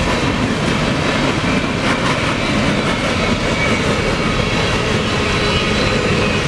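Empty coal cars of a freight train rolling past close by: a loud, steady rumble of wheels on the rails, which empty coal cars make louder than loaded ones.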